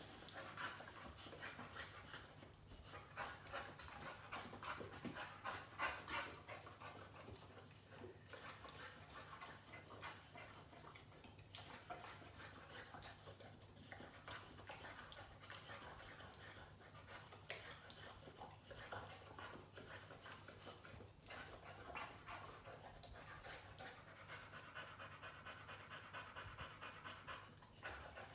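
Boxer dog panting rapidly and steadily, faint.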